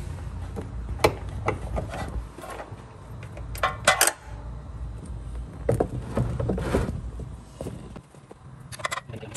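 Metal clinks and taps of a 14 mm wrench being fitted onto and worked against the oil pan's drain plug, a few sharp strikes with a small cluster midway and more near the end. Under them runs a low rumble that drops away near the end.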